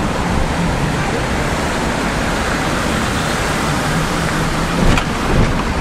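Steady rushing road and wind noise of a moving vehicle, with a faint low hum underneath and wind buffeting the microphone.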